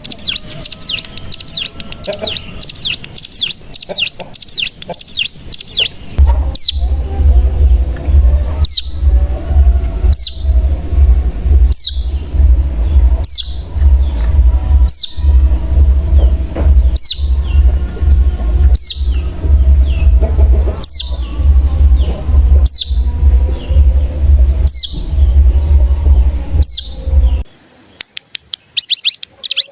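Hill prinia (ciblek gunung) song: a fast, high rattling trill, then a long series of single downward-sliding whistled notes about one and a half seconds apart. A fast trill comes back near the end.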